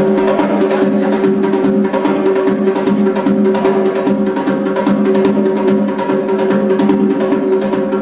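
A Georgian doli, a laced two-headed drum, beaten by hand in a quick, dense rhythm. It plays along with music that holds steady, sustained tones underneath.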